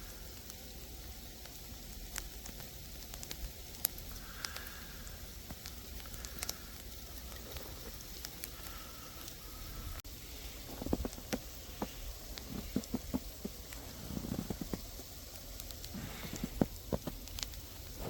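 Sleet pellets ticking and pattering on surfaces around the microphone, many small sharp ticks over a low wind rumble. In the second half, soft low thuds join in.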